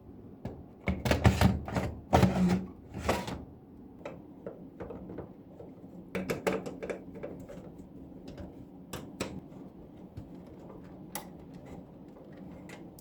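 Knocks and clicks of a DVD drive being fitted into a PC case's drive bay and fastened, metal and plastic parts knocking together. A dense cluster of knocks comes in the first few seconds, then scattered single clicks.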